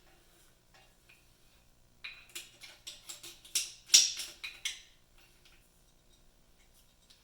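Small metal parts and tools clinking and clattering as they are handled, a quick run of sharp clicks from about two seconds in to about five seconds, loudest near four seconds.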